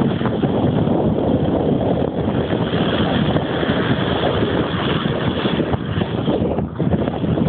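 Cessna 152's four-cylinder engine running at takeoff power, steady and loud, mixed with wind buffeting the microphone.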